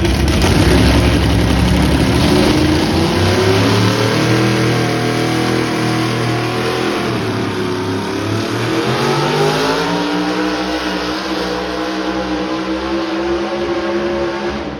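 Pulling truck's engine running hard under load down the track. Its pitch climbs over the first few seconds, dips briefly about seven seconds in, then climbs again.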